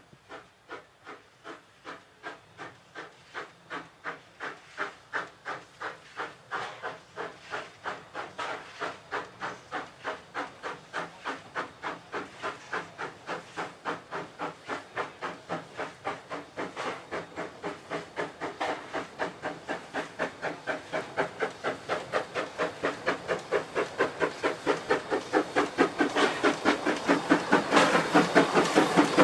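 Two narrow-gauge Great Western 2-6-2 tank steam locomotives working double-headed, their rhythmic chuffing exhaust beats growing steadily louder as the train approaches. Steam hiss rises with the beats near the end.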